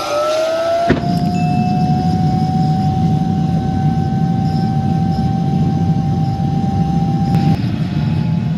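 An electric blower starts up. Its motor whine climbs in pitch and then holds steady, and about a second in a click is followed by a steady rushing rumble of moving air. The whine stops near the end while the rumble carries on.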